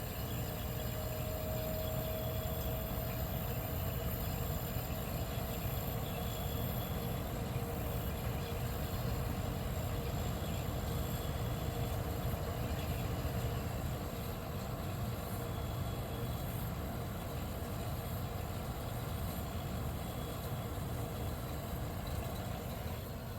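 1973 Westinghouse 25-pint dehumidifier running, with the steady hum of its Tecumseh AE reciprocating compressor and fan motor. It runs quietly, which the owner puts down to the compressor's low-pressure R12 design.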